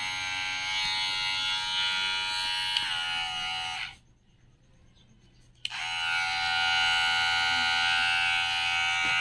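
Cordless hair clipper running unloaded with a steady whine. It cuts off about four seconds in and starts again with a click a second and a half later.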